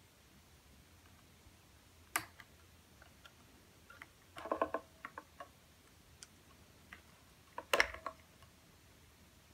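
Scattered sharp clicks and small metal clatters of needle-nose pliers working on the wiring of a Stratocaster pickguard. There is one click about two seconds in, a quick cluster a little after four seconds, and the loudest clatter near the end as the pickguard is lifted off the guitar body.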